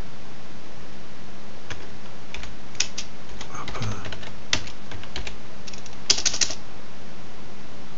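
Computer keyboard being typed on, with single keystrokes spaced apart and a quick run of keys about six seconds in, the loudest part. A steady hum and hiss lie underneath.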